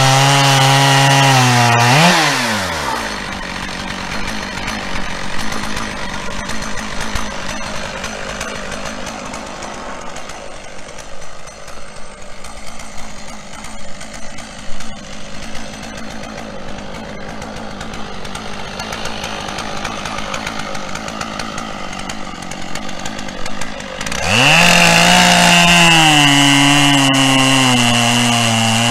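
Chainsaw on a chainsaw mill cutting lengthwise through a pine log at full throttle, its pitch wavering under load. About two seconds in the throttle is released and the engine falls to a quiet idle for some twenty seconds. Near the end it revs sharply back up and cuts again.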